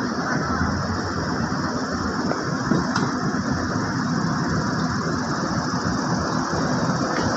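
Diesel bus engine running steadily at the terminal, an even low hum with no change in pitch.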